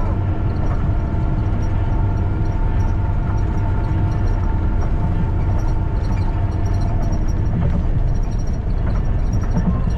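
Engine and tyre noise heard from inside a bus cruising along a concrete highway: a steady low rumble with a faint steady whine over it.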